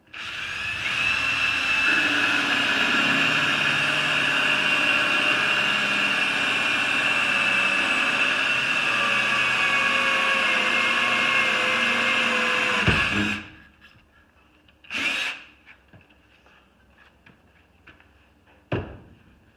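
Power drill driving a hole saw into a wooden 2x4, running steadily with a high whine for about thirteen seconds, its pitch sagging slightly before it stops. Two short bumps follow.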